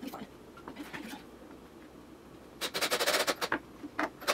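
Drill driving a small screw through a pop tab into a wooden board: a rapid burst of clicks lasting about a second, partway through, then a few single clicks.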